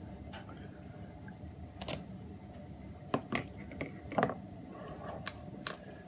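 Metal scissors snipping through plastic bird netting: a handful of short, sharp clicks at irregular intervals, over a steady low background hum.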